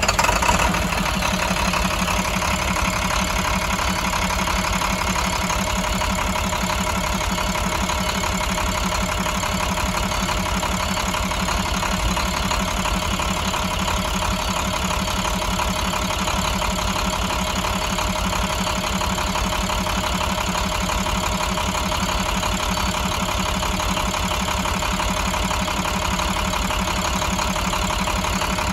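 International MaxxForce DT inline-six turbo diesel engine running in the truck, uneven for the first second and then idling steadily.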